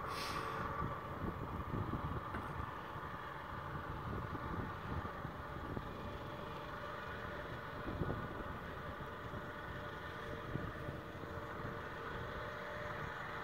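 Small railway locomotive's engine running steadily, a constant hum over an uneven low rumble.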